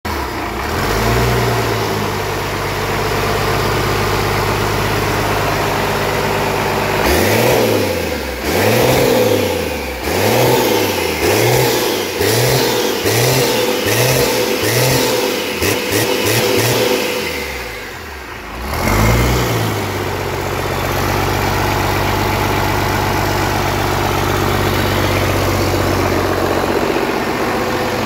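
Cummins 6BT six-cylinder diesel, its overhauled P-pump injection pump newly rebuilt, running at idle. For about ten seconds it is revved up and down in quick repeated blips, with one more rev near the middle, and then it settles back to a steady idle.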